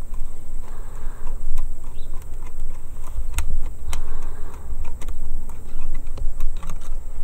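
Low, fluctuating rumble of wind on the microphone, with scattered sharp clicks of a steel hose-clamp hoof band and a hand tool being handled against a horse's hoof.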